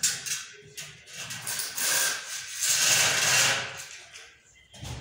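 Metal drywall profiles being handled on a concrete floor: scraping and rubbing swells, with a sharp click at the start and a few light knocks.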